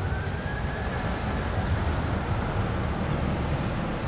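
Steady low rumble of a moving vehicle, with a faint high tone that rises and fades out during the first second.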